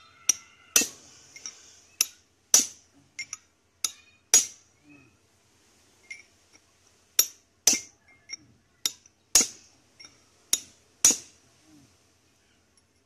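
Hammer blows on the steel crankshaft gear of a Kipor 186 diesel, knocking the stripped gear off the shaft: about fifteen sharp metallic strikes, each ringing briefly, in irregular bunches with a pause about halfway through.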